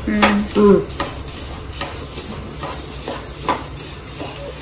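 Wooden spatula stirring coriander seeds roasting in a non-stick kadai: a steady rustle of the seeds with short scrapes and knocks of the spatula against the pan at irregular intervals.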